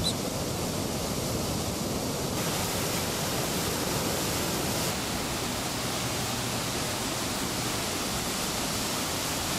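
Waterfall: a steady rush of white water pouring over rocks, growing hissier about two and a half seconds in.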